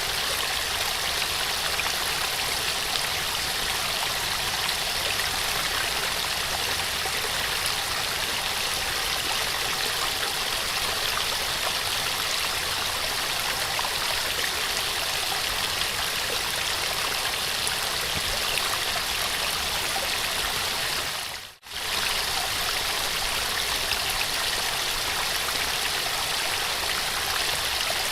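Small waterfall: a steady rush and splash of falling water, brightest in the upper range. About three quarters of the way through it fades out for a split second and comes straight back.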